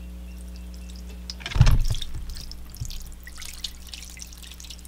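Water being poured from a glass measuring cup into a shallow plastic tray lined with towels. It starts suddenly with a thump about a second and a half in, then splashes and trickles, fading away by near the end, over a steady low hum.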